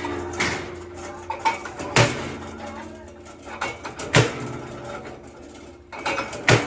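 Power press punching holes in metal: a sharp metallic clank about every two seconds, with smaller knocks between, over the steady hum of the running press.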